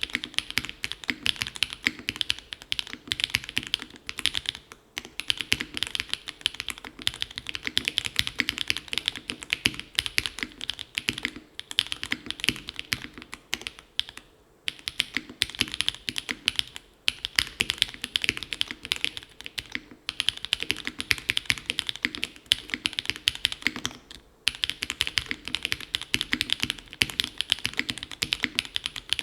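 Fast continuous typing on a gasket-mounted mechanical keyboard with an aluminium plate, foam-dampened case, Gateron x SW Modern Gray linear switches and GMK Rudy keycaps, a dense stream of keystroke clacks broken by a few short pauses.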